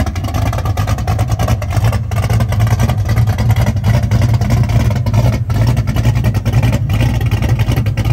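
Car engine running steadily at idle, with a deep, even exhaust rumble.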